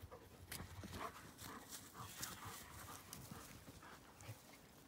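Quiet pasture ambience: faint, scattered soft ticks and rustles with no single clear source.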